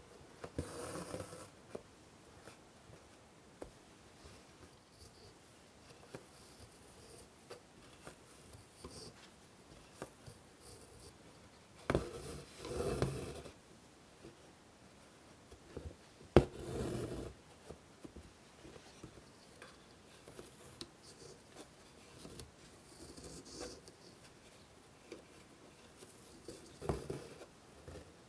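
Hand embroidery on fabric stretched in a hoop: a needle poking through with sharp clicks, and thread drawn through the cloth in scratchy pulls of about a second each, four or so times, with quiet handling in between.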